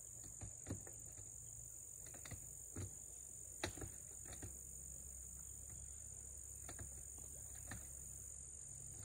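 Insects, such as crickets, keeping up a steady high-pitched drone, with a few faint scattered clicks and taps.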